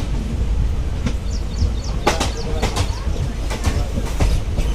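Passenger train coach running, heard from on board: a steady low rumble with irregular sharp clacks as the wheels pass over rail joints and points.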